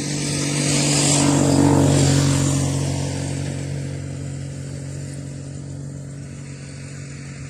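A motor vehicle's engine passing close by, a steady hum with a road-noise hiss that grows louder to a peak about two seconds in and then slowly fades away.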